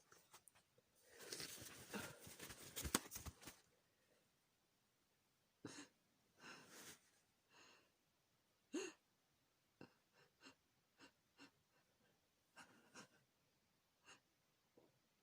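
A person's breathing and nose after a sneeze brought on by chhikni snuff: a long, noisy rush of breath about a second in, then short sniffs, breaths and small clicks, spaced out and fainter.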